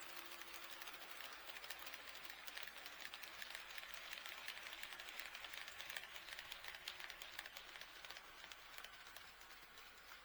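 HO-scale model train running on sectional track, its wheels clicking rapidly and continuously over the rail joints. The clatter fades over the last couple of seconds as the train moves off.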